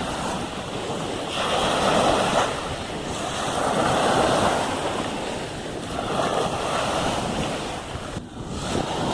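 Sea waves washing onto a beach, the surf swelling and fading about every two seconds.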